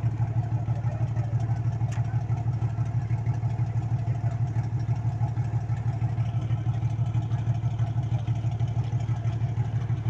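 Ferry boat's engine running steadily with a low, fast, even throb, heard from aboard the boat.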